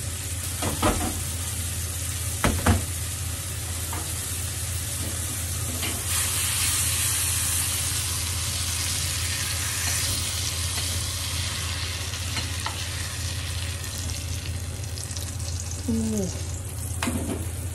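Persimmon slices sizzling in oil in a small frying pan, with a few sharp knocks of a spoon against the pan in the first few seconds.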